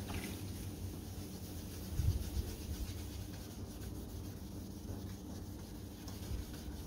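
Fine-grit wet-and-dry sandpaper rubbing by hand on a frosted plastic headlight lens, a soft steady rub as the oxidised surface and earlier sanding scratches are worked out. A low bump about two seconds in.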